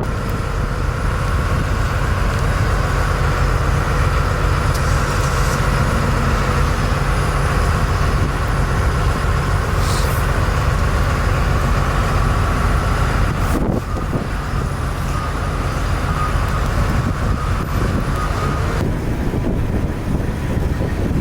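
Heavy truck engine running steadily with a deep rumble.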